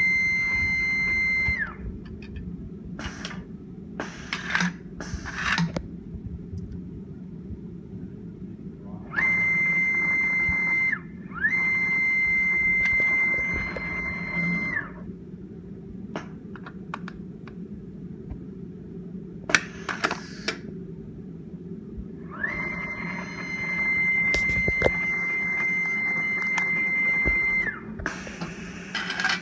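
Machinekit-driven stepper motor moving the carriage of an automated assembly line: a steady high whine that rises in pitch as it starts, holds, and falls as it stops. It makes four runs, from about a second and a half to five seconds long. Between them come short hisses and clacks from the machine's pneumatic actuators and parts, over a low steady hum.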